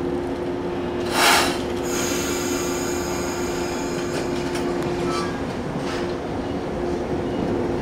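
JR 115 series electric train starting to pull away from a station: over a steady hum, a short loud hiss of air about a second in, then thin high-pitched tones and a few clicks as it gets moving.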